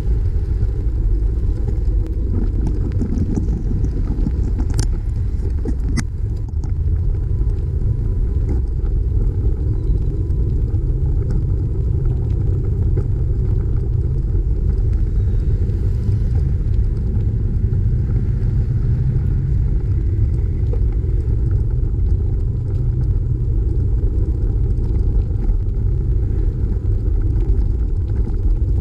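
Steady low rumble of wind buffeting and road vibration on a bike-mounted camera's microphone while riding, with two short sharp clicks about five and six seconds in.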